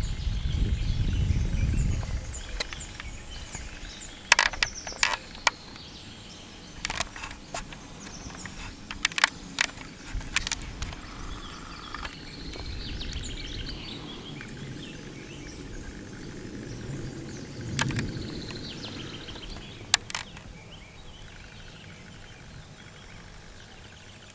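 Outdoor ambience with birds chirping and trilling. Wind rumbles on the microphone in the first couple of seconds, and there are a dozen or so sharp clicks and knocks scattered through the middle.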